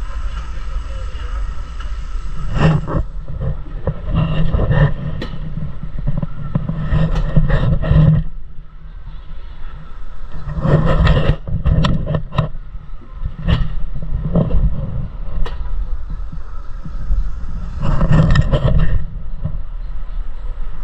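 Mountain coaster cart riding up the lift track: a steady mechanical hum at first, then repeated clattering and rattling of the cart and track in irregular bursts, with low rumble.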